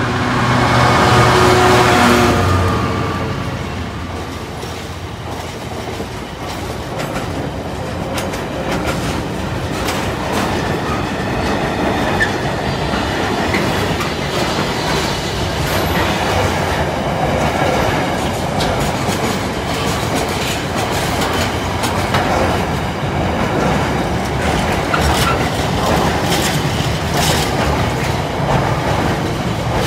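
A GB Railfreight Class 66 diesel locomotive, with its EMD two-stroke V12 engine, passes close by and is loudest in the first two or three seconds. It is followed by a long train of loaded container wagons rolling steadily past, with the clickety-clack of wheels over the rail joints.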